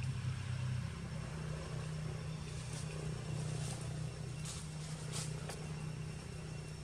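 Steady low mechanical hum, like an engine running, with several faint brief crackles from about three seconds in.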